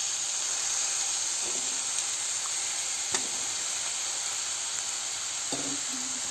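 Cubed raw potatoes sizzling in hot oil and fried masala paste in a pan, a steady frying hiss, with one sharp click about three seconds in.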